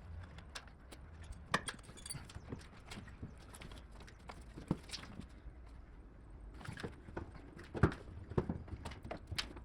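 Irregular clicks and knocks of hand work on a motorcycle: tools and loosened parts being handled and shifted. The loudest knock comes about three quarters of the way through.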